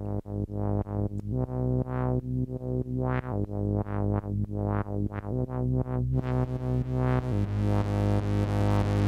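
Buchla-format modular synthesizer playing a low note that repeats about three times a second, each with a sharp attack that fades. It runs through a Kobol-style morphing circuit that folds the waveform together with a sawtooth. About six seconds in, the tone turns brighter, buzzier and more sustained.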